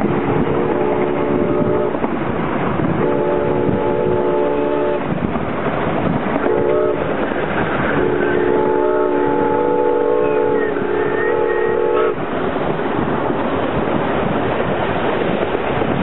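A locomotive's multi-note chime whistle blowing the grade-crossing signal: two long blasts, a short one, then a final long blast that cuts off sharply. Train running noise sounds underneath.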